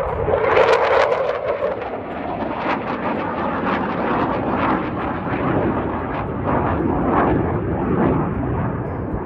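Military fast jet flying low past, its engine roar coming in suddenly and staying loud and crackling throughout.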